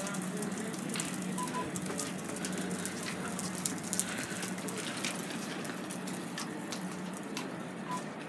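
Open-air railway platform ambience: a steady crackling hiss with many scattered light clicks over a low steady hum, and two brief faint beeps, one early and one near the end.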